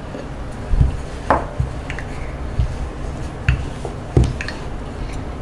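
Wooden rolling pin rolling out wheat-flour dough on a stone board, with a dull knock each time the pin is set down or bumps the board, about six in all, a few with a sharper click, over a steady low hum.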